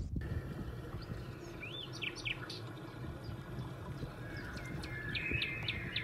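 Songbirds chirping: a few scattered high calls in the first half, then a quick series of short repeated chirps near the end, over a steady low background hum.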